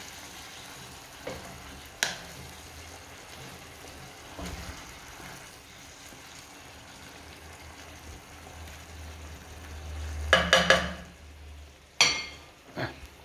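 Wooden spatula stirring and scraping vegetables in a non-stick frying pan that sizzles steadily in a little added hot water, with a few light knocks. Near the end come a burst of louder clatter and one sharp knock of cookware.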